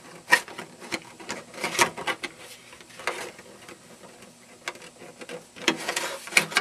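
Light clicks, taps and rubbing of a thin plastic cockpit side panel being worked and slid into place inside a model airplane's fuselage, with a denser stretch of scraping near the end.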